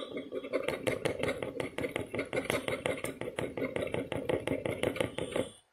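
Scratch-off lottery ticket being scratched, quick repeated scraping strokes over the coating, several a second, stopping abruptly near the end.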